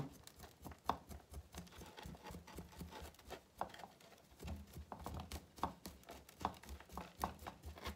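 Wooden chopstick poking and scraping through a Chinese elm bonsai's root ball, giving faint, irregular taps and scratches as old, waterlogged, compacted substrate is raked out of the roots for repotting.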